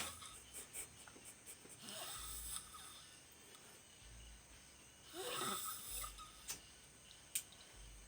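A sleeping person snoring: two long rasping snores every few seconds, a fainter one about two seconds in and a louder one about five seconds in.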